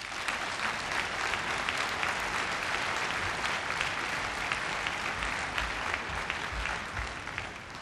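A large hall audience applauding, a dense patter of many hands clapping that fades away near the end.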